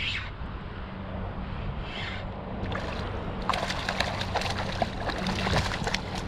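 Water splashing and sloshing around a kayak, with two short splashes early and then a busy run of small clicks and knocks against the hull from about three and a half seconds in.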